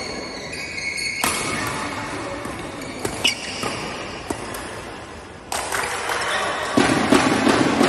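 Badminton play on an indoor court: sharp racket strikes on the shuttlecock and high-pitched shoe squeaks on the floor, then a sudden wash of noise about five and a half seconds in that grows louder near the end.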